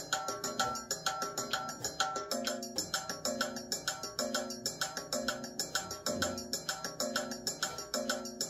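Recorded backing music playing: a quick, steady beat of short woody clicks under held pitched notes.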